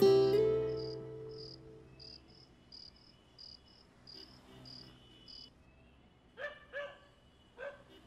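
Acoustic guitar music fading out over the first second or so, then crickets chirping in short, evenly spaced pairs. Near the end a dog barks three times.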